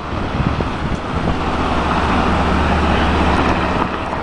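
Coast Guard helicopter flying low over the water: a steady rotor and engine drone with a low hum, swelling a little and easing near the end.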